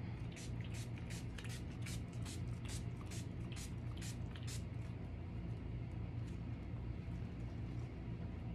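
Small hand-held spray bottle squirting water onto the back of a decorative static cling film: a quick run of short squirts, about three a second, that grows fainter after about four and a half seconds, over a low steady hum.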